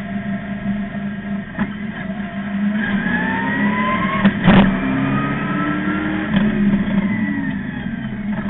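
Street stock race car's crate engine heard from inside the cockpit, running under load and climbing in pitch twice as it accelerates, with one loud thump about halfway through.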